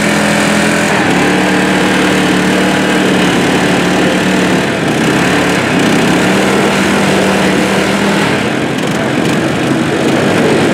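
Small engine running steadily, its pitch shifting a few times. The clear engine note blurs into a rougher noise about eight seconds in.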